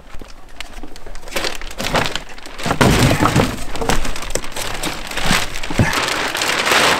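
Thick plastic wrapping crinkling and rustling as it is handled and pulled off a metal rack, with a heavier bump about three seconds in as the rack is laid across its cardboard box.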